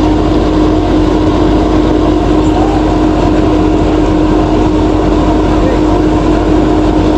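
A steady machine hum, running at an even pitch without change.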